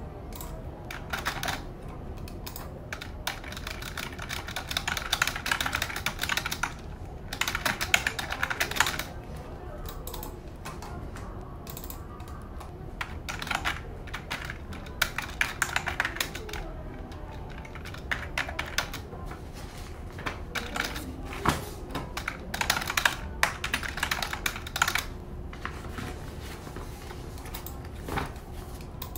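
A thick stack of paper forms being leafed through by hand: sheets rustling and flapping in uneven bursts of quick crackles and clicks.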